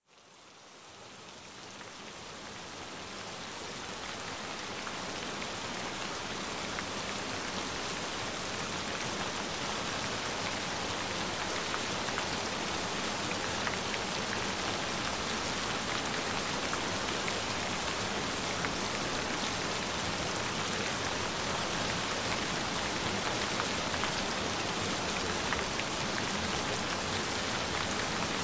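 Gentle rain falling steadily, with fine drop ticks scattered through it. It fades in from silence over the first few seconds.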